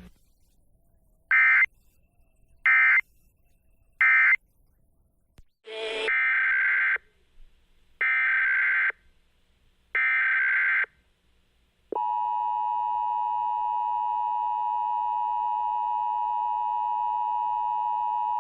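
Emergency Alert System data tones: three short bursts of screechy digital tones (the end-of-message code closing one test), then three longer bursts about two seconds apart (the header code opening the next alert). About twelve seconds in, the steady two-tone EAS attention signal starts and holds.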